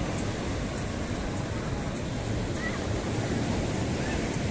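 Ocean surf breaking and washing up on a sandy beach: a steady, unbroken rush of waves.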